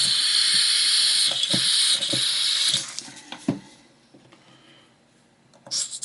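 Butane hissing as a refill can is pressed into the filler valve of a tall Zaima butane lighter, with a few small clicks. The hiss stops about three seconds in, and a second hiss starts near the end.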